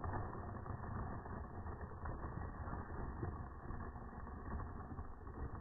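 Steady low rumble of outdoor background noise, with no distinct knocks or calls standing out.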